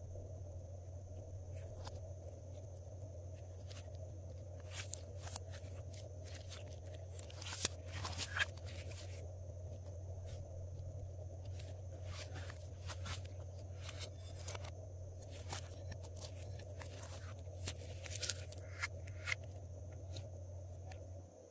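Glossy slime being squeezed and worked by hand, giving scattered sharp clicks and crackles in clusters, with two louder snaps. A steady low hum sits under it throughout.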